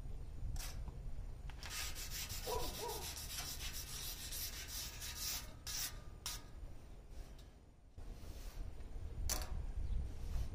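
Paper towel rustling and rubbing. A dense run of quick rubbing strokes comes about two to five seconds in, with a few sharp clicks, over a low steady rumble.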